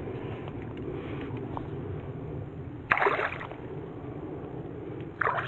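A hooked bass splashing and thrashing at the water's surface right beside a float tube, twice: once about three seconds in and again briefly near the end.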